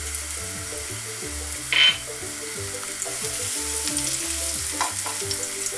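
Chopped garlic sizzling in hot olive oil in a nonstick frying pan as it is stirred with a spatula, a steady hiss with one brief louder noise about two seconds in. Soft background music underneath.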